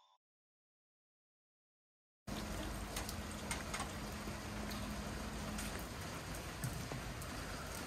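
Silence for about two seconds, then steady rain falling on a wet street, with single drops hitting close by. A faint steady low hum runs under the rain and stops partway through.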